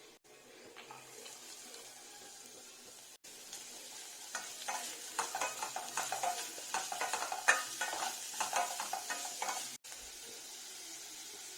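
Food frying with a steady sizzle in hot oil in a pan. From about four seconds in, a spatula stirs it with quick, repeated scraping and clacking against the pan, which stops shortly before the end.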